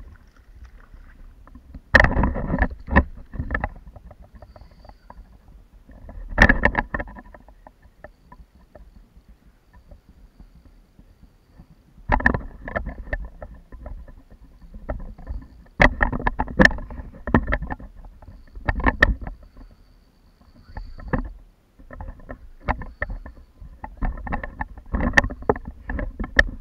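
Bursts of rattling knocks and clatter on a sit-on-top kayak, picked up through the camera fixed to the boat. They come in clusters of one to two seconds, several times over, with quiet gaps between.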